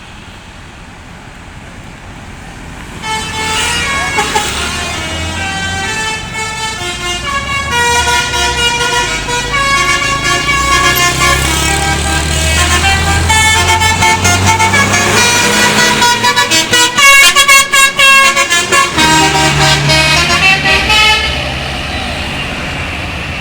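Bus telolet basuri horn playing a tune of stepping tones, starting about three seconds in and stopping near the end, over the low sound of the bus's engine.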